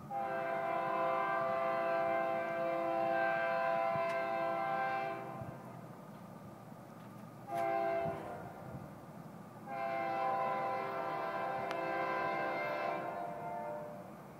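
Locomotive air horn sounding a chord of several tones: one long blast, then a short blast about two and a half seconds later, then another long blast.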